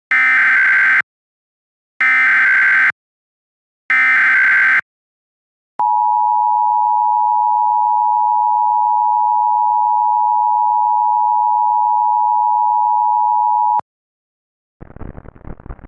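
Emergency Alert System signal. It opens with three one-second bursts of SAME header data tones, then the two-tone EAS attention signal holds steadily for about eight seconds and cuts off sharply. A noisy hiss starts about a second later, near the end.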